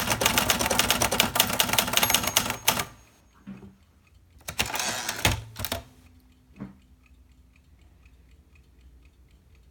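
Olivetti Valentine portable typewriter typing: a rapid run of keystrokes for nearly three seconds, then they stop. About a second and a half later comes a second dense burst of mechanical clatter lasting about a second, then a single clunk.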